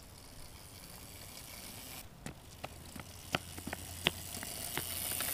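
Small mini dirt bike riding on asphalt: a faint hiss that grows louder toward the end, with a few sharp clicks scattered through it.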